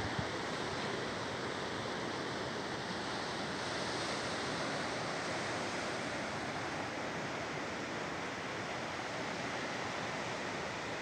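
Ocean surf breaking on a sandy beach and rocks, a steady wash of noise.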